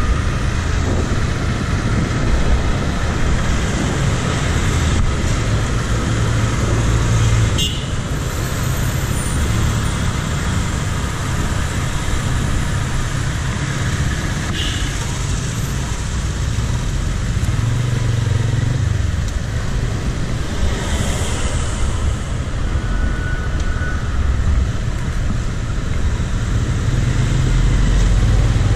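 Urban road traffic heard from a bicycle: cars and motorcycles running nearby over a steady, heavy low rumble.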